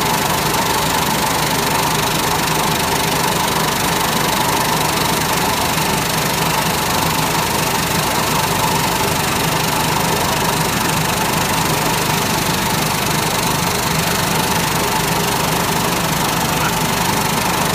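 Puffed cereal snack production line machinery running with a steady, unchanging mechanical noise and hum.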